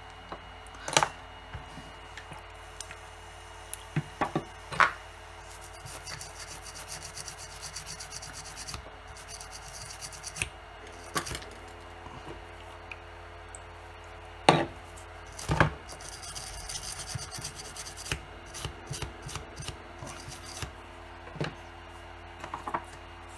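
Hands handling a drill motor's circuit board and its wiring on a bench mat: scattered knocks and clicks with rubbing and scraping, over a steady background hum.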